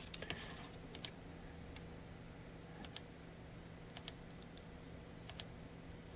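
Faint clicking at a computer: four quick pairs of clicks a second or so apart, with a couple of single clicks, over a low steady hum.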